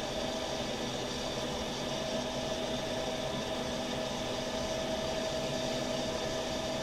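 Laser cutter running while cutting thick acrylic sheet: a steady machine whir and hiss with a held tone through it.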